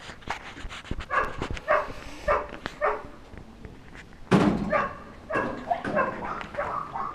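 A dog barking repeatedly: short barks about every half second, with a louder run of barks starting about four seconds in.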